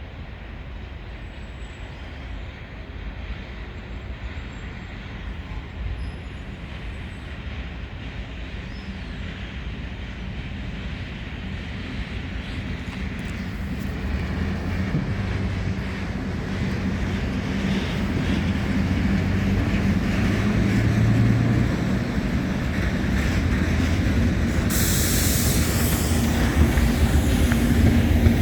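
An HŽ class 1141 electric locomotive hauling a freight train approaches, growing steadily louder, with a low hum. A high hiss joins in about 25 seconds in.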